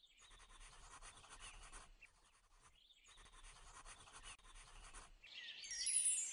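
Faint pencil scratching on paper in two strokes of about two seconds each, then near the end a brief burst of high chirps.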